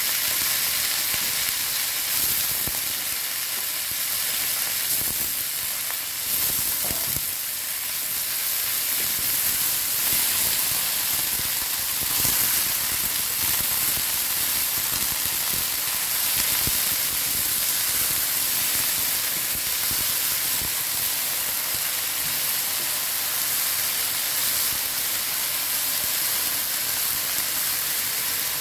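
Midin fern stir-frying in hot oil and garlic in a wok: a steady sizzle, with the wooden spatula stirring and scraping through the greens.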